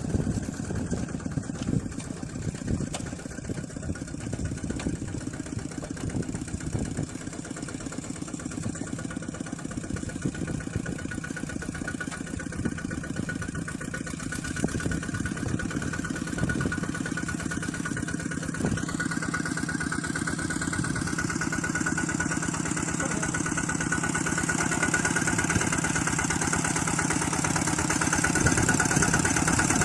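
An engine running steadily with a rapid, even firing beat, growing gradually louder over the second half.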